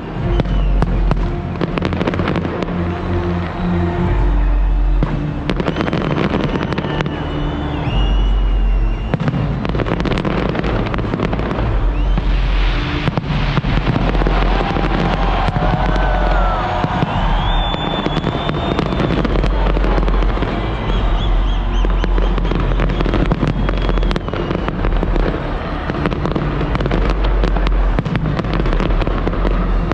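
New Year fireworks display: rapid, dense bangs and crackling of aerial shells going off continuously, over loud accompanying music with a heavy bass.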